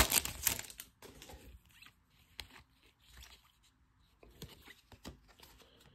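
Foil wrapper of a Topps Chrome card pack crinkling as it is torn open, fading out within the first second. After that, faint scattered clicks and scrapes of trading cards being handled.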